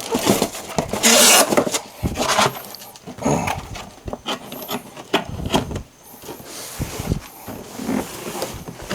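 Cardboard box and packaging being handled: rustling, scraping and scattered knocks, with a loud rustling or tearing burst about a second in.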